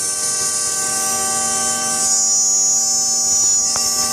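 CNC machine spindle running at high speed while machining, a steady high whine over several constant lower tones. The high whine dips slightly in pitch in the second half, with a short tick near the end.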